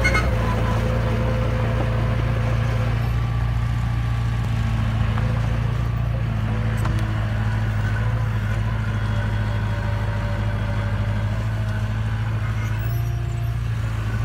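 Small crawler bulldozer's diesel engine running steadily, a low even drone, as the machine pushes loose soil.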